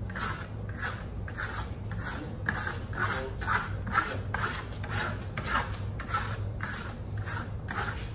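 Steel plaster trowel scraping across Venetian plaster on a sample board in quick, even strokes, about two a second. A steady low hum runs underneath.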